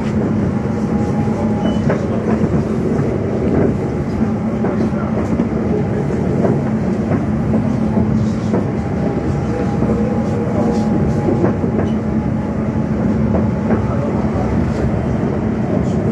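Class 710 electric train running between stations, heard from on board: a steady rumble of wheels on the rails with a continuous hum and occasional faint clicks.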